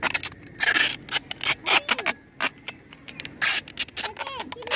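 Wide adhesive tape pulled off its roll in a series of short rasping strips, some longer and some brief, as it is wrapped over a ceiling fan box to seal its openings.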